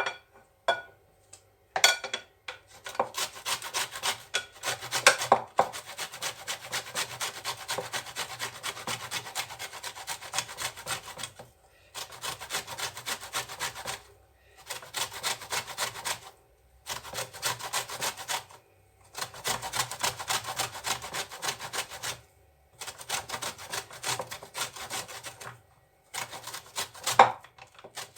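A whole orange, peel and all, being grated on a coarse hand grater: rapid rasping strokes in runs of a few seconds, broken by short pauses.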